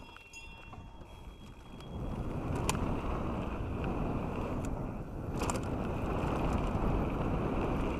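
Canyon Strive enduro mountain bike on Onza tyres setting off and rolling down a gravel trail: tyre crunch on the gravel and wind on the camera microphone, growing louder about two seconds in, with a few sharp rattles from the bike along the way.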